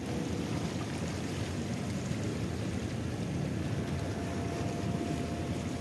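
Steady low rumble of ship and tug engines across the harbour water, mixed with wind on the microphone.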